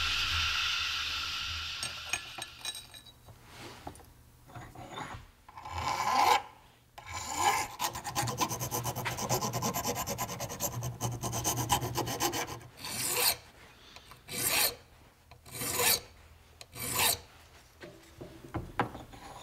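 Hand file rasping on a small metal plate clamped in a bench vise, filing down a tab on its edge: a stretch of quick back-and-forth strokes in the middle, then four slower single strokes near the end. At the start, the hiss of a sandblast cabinet's blast gun dies away.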